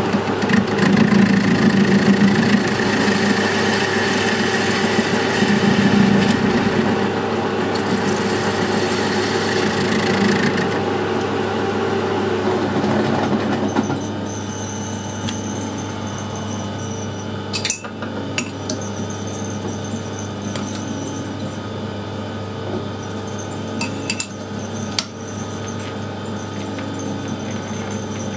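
Metal lathe running with a 4-jaw chuck while facing the end of a welded square steel tube: a steady motor and gearing hum with a few steady tones. It drops to a quieter level about halfway through, with a few sharp clicks later on.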